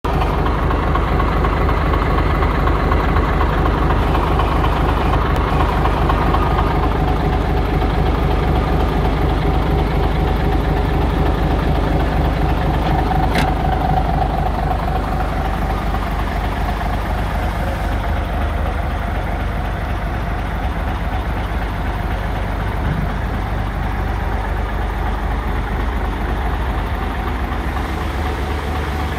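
DAF 3600 ATi tractor unit's turbocharged straight-six diesel idling steadily, heard close at the exhaust tailpipe at first.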